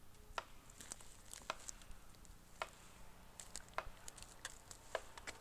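Scattered sharp clicks and snaps of boots stepping through logging slash and dry branches.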